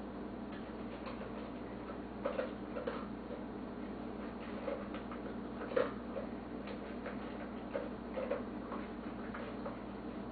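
A dog eating its meal: irregular short clicks and crunches of chewing and of food and bowl, a dozen or so spread unevenly over a steady low hum.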